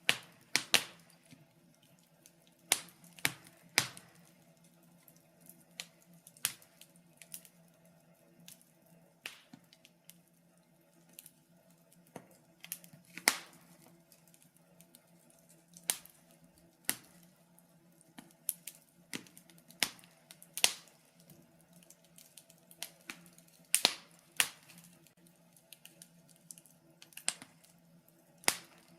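Wood fire in a fireplace crackling, with sharp irregular pops and snaps scattered a fraction of a second to a few seconds apart, over a faint steady low hum.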